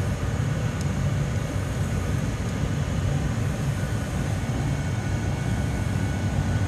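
Steady low roar of a glassblowing hot shop's gas-fired furnace and fans, even and unbroken.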